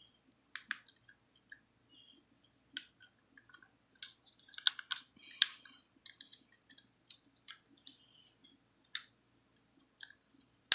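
Scattered sharp plastic clicks and handling of a Tenker DC-014 foldable quadcopter as its arms are swung out, with the loudest clicks about halfway through.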